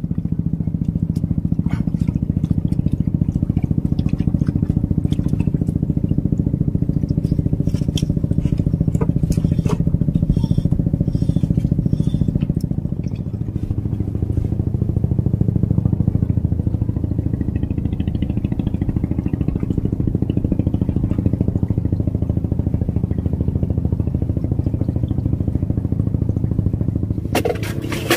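A small engine running steadily at an even speed, dipping briefly about halfway through.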